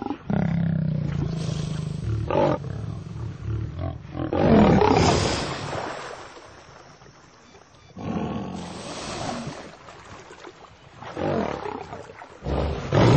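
Male lion roaring in several loud bursts, with a quieter lull about halfway through, while fighting a crocodile.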